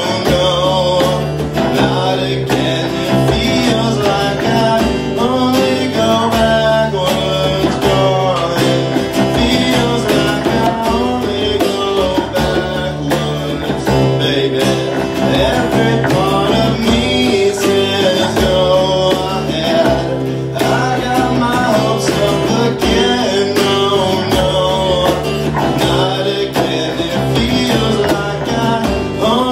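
Live acoustic band: two acoustic guitars strummed and a djembe played by hand, with a man singing lead.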